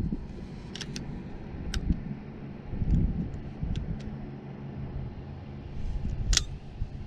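A low, steady motor hum, swelling about three seconds in and again later, with a few faint clicks over it.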